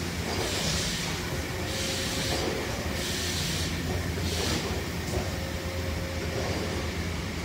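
Factory machinery running with a steady low hum. A hiss comes and goes about once a second and stops about four and a half seconds in.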